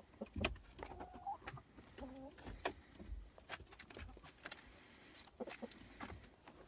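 Chicken making soft clucking calls: two short pitched calls, about one and two seconds in, among scattered light clicks and taps.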